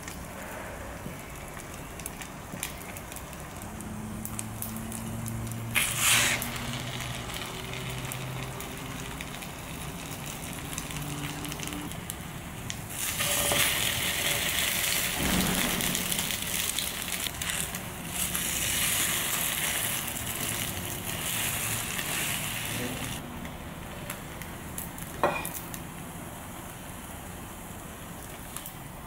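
French toast sizzling in hot oil in a frying pan. The sizzle gets louder a little under halfway through, when a slice is flipped onto its raw side, and eases off again near the end. There are two sharp knocks, about six seconds in and again near the end.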